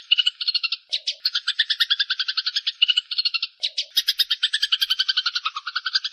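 Eurasian tree sparrows chattering in a fast run of harsh chirps, about eight to ten a second, the calls of sparrows fighting. The run breaks briefly about one second in and again near four seconds.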